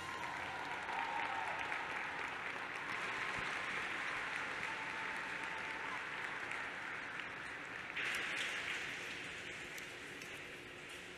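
Audience applauding after the music ends, an even clapping that rises sharply about eight seconds in and then slowly fades.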